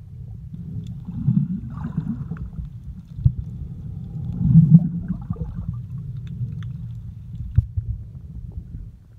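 Muffled underwater sound from a camera held below the surface: a steady low rumble of moving water, with two louder swells about three seconds apart and a few sharp clicks.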